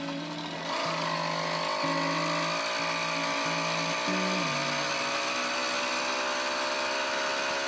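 Firestorm 80 two-stroke bicycle engine with a custom expansion-chamber exhaust, revving up less than a second in and then buzzing steadily under way. Background music with a stepping bass line runs underneath.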